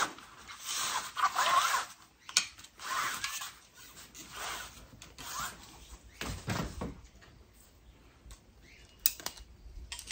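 A two-piece fishing rod is slid out of its tight-fitting rod bag: rubbing and rustling with short squeaks in the first two seconds, then further rubs. A dull thump comes about six seconds in and a few light clicks near the end as the rod sections are handled.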